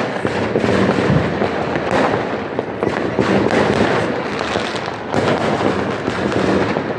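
Many fireworks and firecrackers going off at once: a continuous din of overlapping bangs and crackles with no pause.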